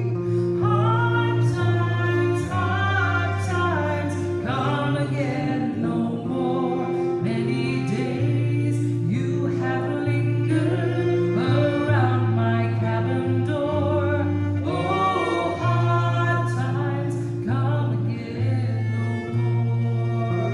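A woman singing a slow folk song to her own acoustic guitar, with a fiddle playing along and holding long notes under the melody.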